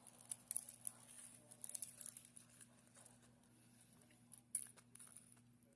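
Faint scattered small clicks and soft rustles of a cinnamon twist donut being handled and eaten, with one louder click about four and a half seconds in.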